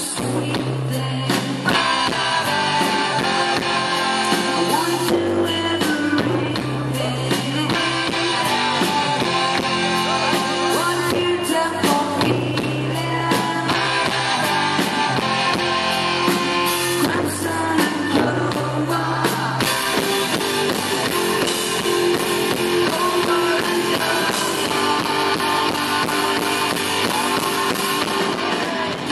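Live rock band playing: electric guitars, bass and drum kit, with a woman singing lead vocals.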